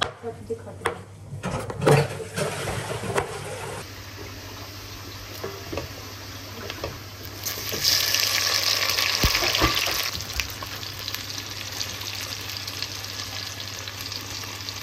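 A knife cutting tomatoes on a chopping board, a few knocks, then onions and tomatoes frying in oil in a steel pot, stirred with a wooden spoon. The sizzle is loudest for a couple of seconds around the middle and then settles to a steady hiss.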